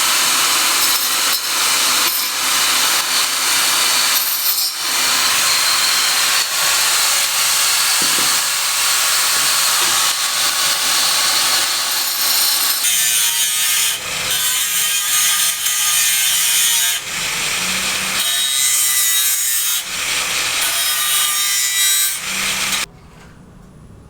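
A saw cutting steadily with brief pauses, a loud hissing rasp that stops abruptly near the end.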